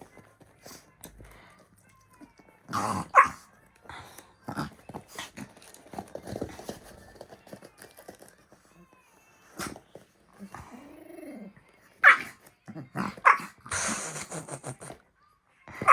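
Pet dog barking in short bursts several times during tug-of-war play, with scattered knocks and rustling between the barks.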